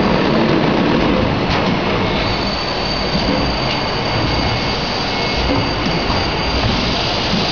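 YF460 automatic roll-fed screen printing machine running: a steady mechanical rumble and hiss of its rollers and drive, with a thin high whine coming in about two seconds in.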